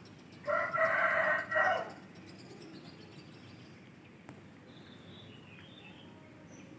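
A rooster crowing once, a single drawn-out call of about a second and a half, starting about half a second in.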